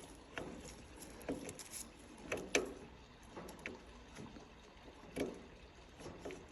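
Faint, scattered clicks and knocks, a few short ones every second or so, with the loudest about two and a half seconds in and again about five seconds in; no engine cranking or running.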